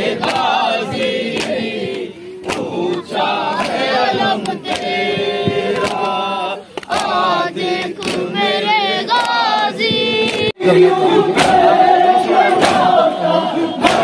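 Group of mourners singing a nauha, a Muharram lament for Abbas and Husain, in chorus, with regular sharp strokes of matam (hand-on-chest beating) keeping time, about one to two a second. A brief break comes about ten and a half seconds in, and after it the singing is louder.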